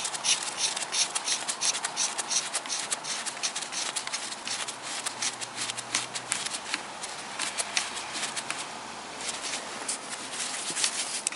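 Socket ratchet clicking in a fast, uneven run as its handle is swung back and forth, undoing an ignition coil hold-down bolt.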